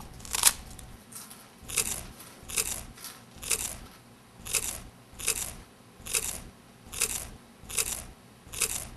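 A person chewing crunchy food, with a crunch about once a second.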